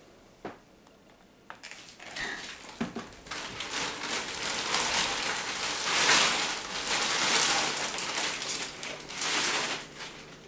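Thin plastic shopping bag rustling and crinkling as hands rummage through it, loudest about six seconds in, after two light knocks in the first two seconds.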